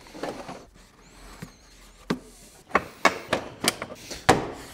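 Sharp plastic clicks and knocks, about half a dozen in the second half, as coolant hose connectors and their new clips are pushed and snapped into place on a radiator.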